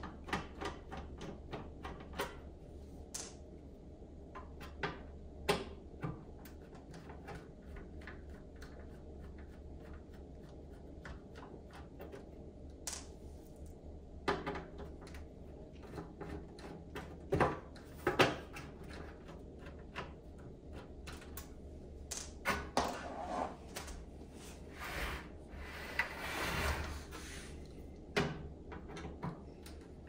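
Screwdriver working the screws out of an AV receiver's sheet-metal cover: a long run of small clicks and ticks, with a few louder knocks and scrapes of the metal case being handled in the second half.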